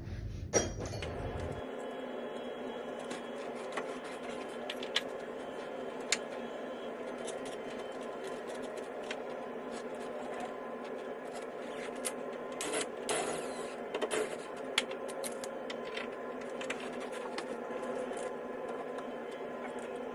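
Scattered small clicks and taps of lock hardware being handled and fitted as a keypad deadbolt is mounted back onto a door, over a steady background hum.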